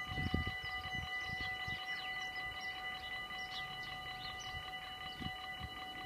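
Electronic warning bells of a Dutch automatic half-barrier (AHOB) level crossing ringing steadily at several pitches while the barriers are down, signalling an approaching train. Low rumbling thumps come in the first half second.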